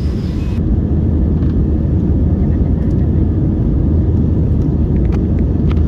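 Steady, loud rumble of an airliner's engines and airflow heard inside the passenger cabin during the climb just after takeoff.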